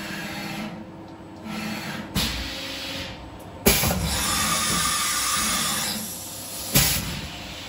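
Syil X7 CNC mill's automatic tool change: the axes and tool carousel run with a low rumble, then a sharp clack followed by about two and a half seconds of hissing air, and another clack near the end, as the pneumatic drawbar releases one tool and clamps the tap.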